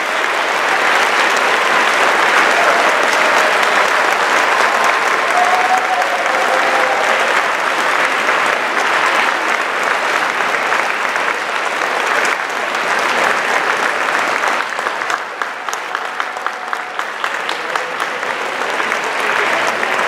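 A large audience applauding steadily; the clapping thins a little about three quarters of the way through, so that single claps stand out, then swells again near the end.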